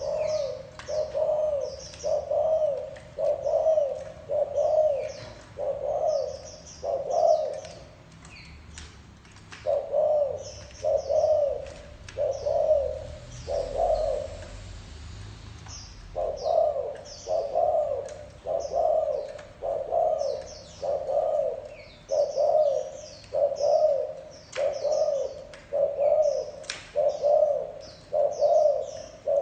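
Spotted dove (cu gáy) giving its courtship coo ('gù'), a low soft note repeated about once a second, with two short pauses partway through. Small birds chirp high above it throughout.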